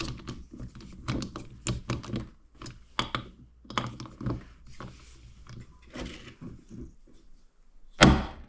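Ratcheting torque wrench clicking in short runs as small bolts are tightened to 90 inch-pounds on a Polaris Sportsman 90 engine case. A sharp metal clack near the end is the loudest sound.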